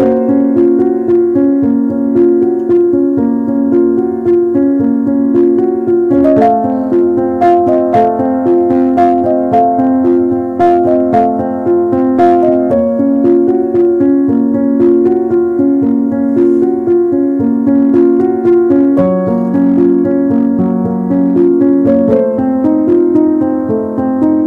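Instrumental piano music playing steadily, a melody of short stepping notes over held lower notes.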